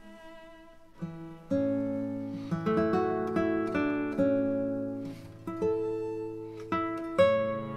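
Background music of plucked guitar notes and chords, coming in louder about a second in.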